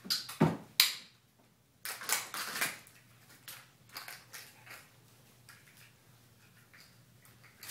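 Kittens jumping and landing on a hardwood floor: a couple of sharp thumps about half a second in, then scuffling of paws on the wood around two seconds in, fading to scattered faint taps.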